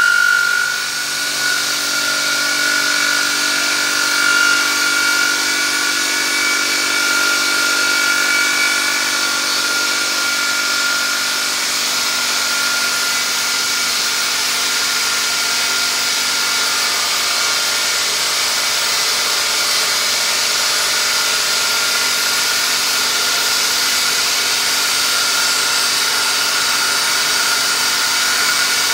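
Milling machine spindle running a cutter that machines the aluminum pump bore of a GM 6L80 transmission case: a steady hiss of cutting with a high whine held at one pitch. A second, higher whine sounds over the first ten seconds or so.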